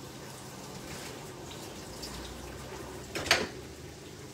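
Chopped celery sizzling steadily in oil in a frying pan, browning over a high flame, with one brief sharp knock a little over three seconds in.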